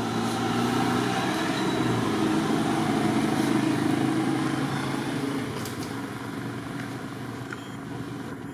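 A motor vehicle's engine running with a steady hum; it grows louder, then fades away after about five seconds, as if passing by.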